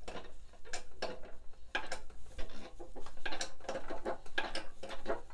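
Manual hydraulic bench press being pumped by its hand lever under load: a run of irregular metallic clicks and knocks, two or three a second, with one sharper knock about two and a half seconds in.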